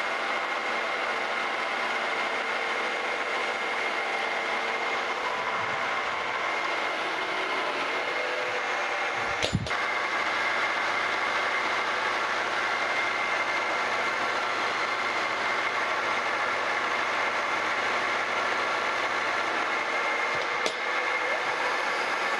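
Milling machine running with its end mill cutting a pass along the angled side of a metal plate: steady machining noise with a high whine. There is a sharp click about ten seconds in and another near the end.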